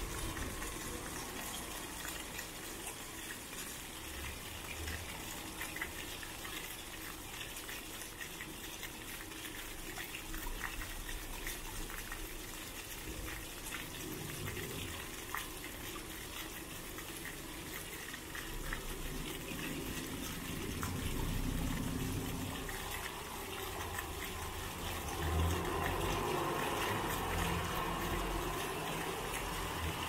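Several small jets of a ground-level plaza fountain spouting from floor nozzles and splashing onto wet paving: a steady rush and patter of falling water. A low rumble builds underneath in the last third.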